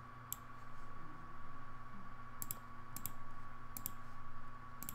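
Computer mouse clicking a handful of times at irregular intervals, some clicks in quick pairs, over a steady faint electrical hum.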